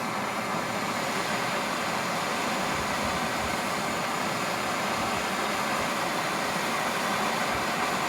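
Steady hiss of a plumber's propane torch flame heating a copper pipe joint for soldering.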